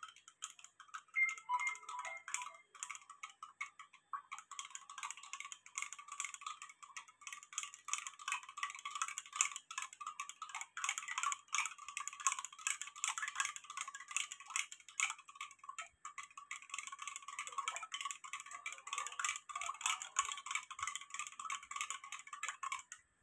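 A spoon stirring whey protein powder into half a glass of water, clinking rapidly and continuously against the inside of the drinking glass. The clinking is lighter for the first few seconds and fuller from about four seconds in.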